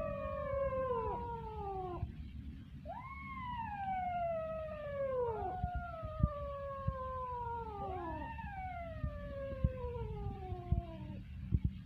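Young kittens crying in long, drawn-out meows, each rising quickly and then sliding slowly down in pitch over two to three seconds, two cries sometimes overlapping. A few sharp ticks come in the second half.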